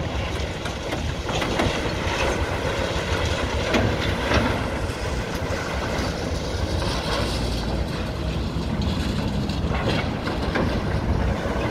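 Hitachi demolition excavators running while their attachments bite into a concrete building, with irregular crunches and clattering of breaking rubble over the steady engine rumble.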